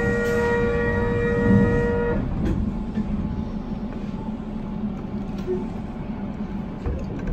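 Train horn sounding a two-note chord, held for about two and a half seconds near the start, over the steady rumble of a train running.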